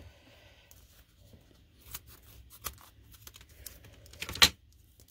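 Adhesive foam tape being pulled and torn off for a mounting piece: faint scattered rustles and small ticks, with one louder, sharper crackle about four and a half seconds in.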